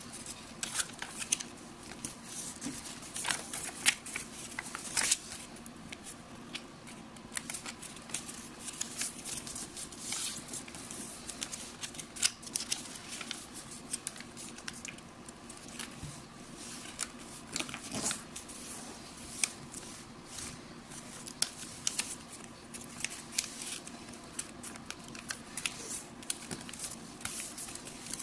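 A square of origami paper being folded and creased by hand: irregular rustling and crinkling, with many short crisp clicks as the folds are pressed flat.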